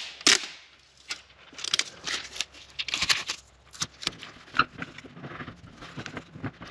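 Adhesive tape being pulled off the roll and pressed down over house wrap: a run of short, irregular ripping and rustling sounds.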